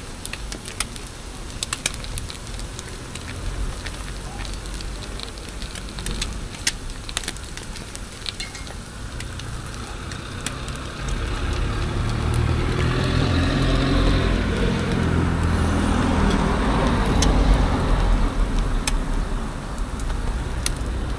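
Food sizzling on a hot griddle, with sharp clicks of metal utensils in the first half. A low rumble, like a passing vehicle, swells up from about halfway through.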